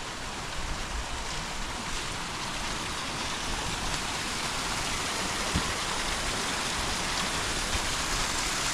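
Stream rushing over small falls, a steady hiss of running water that grows slowly louder.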